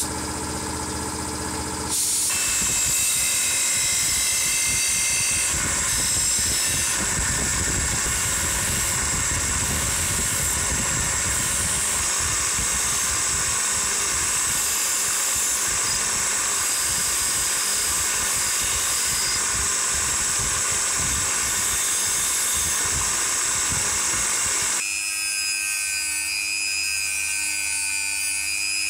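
Abrasive blasting hissing in a sandblast cabinet against an aluminium saw part. About two seconds in it gives way to a bench grinder running with an abrasive wheel against an aluminium plate, then near the end to a rotary tool whirring with a sanding drum on the aluminium housing.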